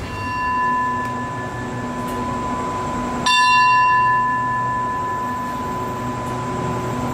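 A station bell struck twice: a clear ringing tone at the start and a louder, brighter stroke about three seconds in, each ringing on for a few seconds. A steady low hum runs underneath.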